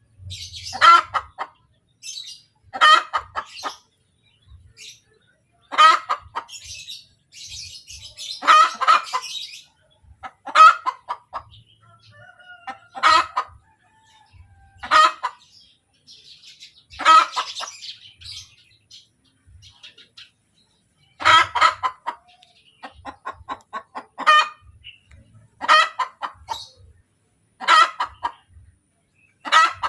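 Hen cackling after laying an egg: a loud, repeated 'kotek' call about every two seconds, each a quick run of clucks.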